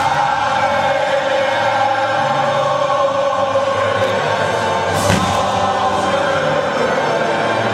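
Choral music playing loud and sustained, with a sharp firework thump about five seconds in.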